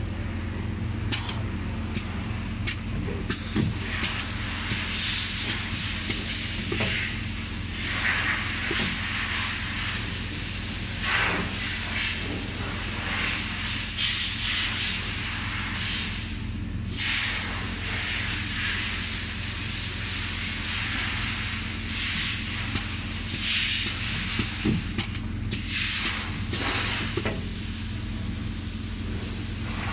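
Steady hum of an automated assembly machine with a constant high whine, broken by irregular short hissing bursts and a few light clicks.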